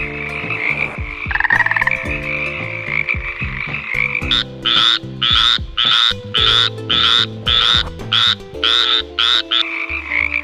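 Frogs croaking: a steady chorus of calls, joined about four seconds in by a run of about ten loud croaks, roughly two a second.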